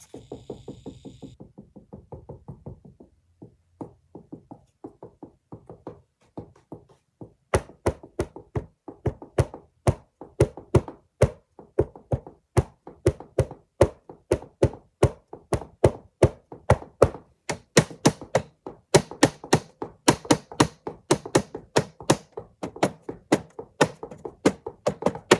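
ASMR knocking on a hard surface, a steady run of short knocks. They are soft and quick at first, then grow much louder about seven seconds in, at about three to four knocks a second.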